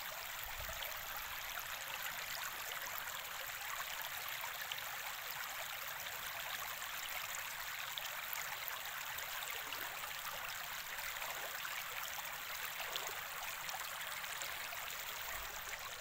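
Shallow water running steadily over a gravel road, an even rush of flowing water across the stones.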